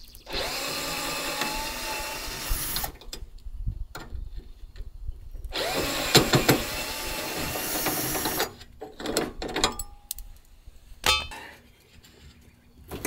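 A power drill-driver running in two bursts of a few seconds each, its motor pitch rising and falling, as it backs out self-tapping screws from a metal mounting bracket. A few clicks and a sharp knock follow near the end.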